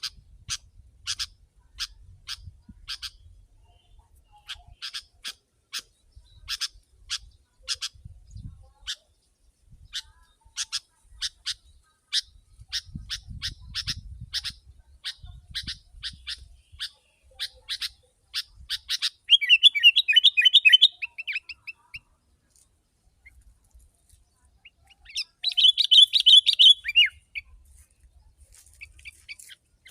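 Sooty-headed bulbul (kutilang) calling: a long run of short, sharp notes about two a second, then two loud bursts of rapid, excited chattering song, one about two-thirds through and one near the end.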